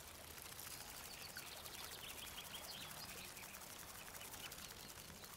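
Faint outdoor ambience over water, with soft, distant bird chirps: a run of small high chirps around the middle.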